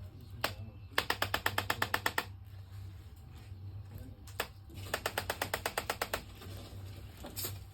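Handheld chiropractic adjusting instrument firing on the knee: two rapid runs of about a dozen even clicks each, about ten a second, with single clicks before, between and near the end.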